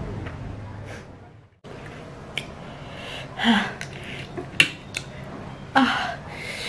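Short wet mouth clicks and lip smacks from eating, with a few brief vocal sounds, over a low steady hum that cuts out sharply about a second and a half in.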